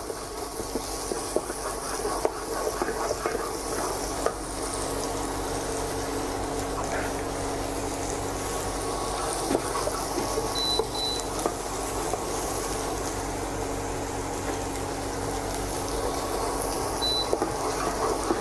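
Chopped garlic, onion and shallot sizzling gently in melted butter in a nonstick pan over low heat. A wooden spatula stirs them with scattered soft scrapes and taps against the pan.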